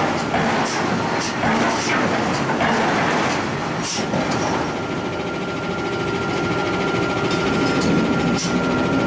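Forge-shop machinery running with a steady rumble, crossed by irregular sharp metal clanks; from about halfway a steady high whine joins in.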